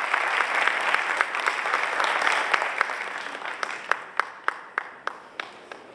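Audience applause dying away, thinning after about three seconds to a few scattered single claps that stop near the end.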